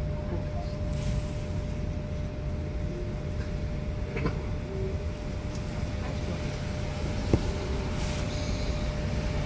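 Inside a Frankfurt R-type low-floor tram car: a steady low rumble with a constant hum, and one sharp click about seven seconds in.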